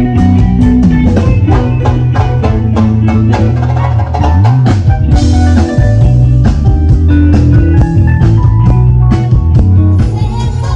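Live rock band playing through a large outdoor PA: a drum kit keeps a steady beat under sustained electric bass notes and electric guitar. The bass slides up and back down about four seconds in, and a cymbal crash follows about a second later.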